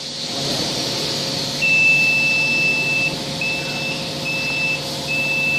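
Full-auto shrink-wrapping machine's control-panel buzzer sounding one long high beep and then short beeps about once a second, over the steady hum of the running machine.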